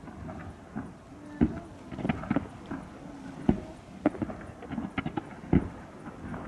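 Fireworks bursting: an irregular run of bangs and pops, a few of them sharp and loud.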